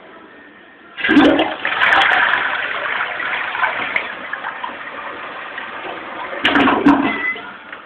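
Toilet flushing: a sudden onset about a second in, then water rushing loudly through the bowl and slowly tapering, with a second loud surge about six and a half seconds in.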